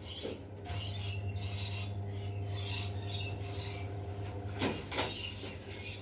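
Birds chirping and calling, with two short harsh calls just before five seconds in, over a steady low hum.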